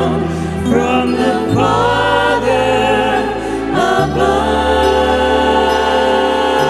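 Choir singing a slow gospel-style worship song over instrumental accompaniment, held notes changing with each chord about every one to two seconds.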